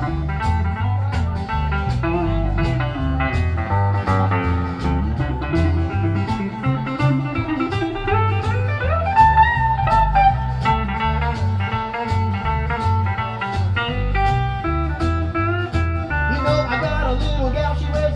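Instrumental break of a live honky-tonk country song by a trio: a twangy lead instrument plays sliding, gliding notes over a walking bass line and a steady two-beat rhythm.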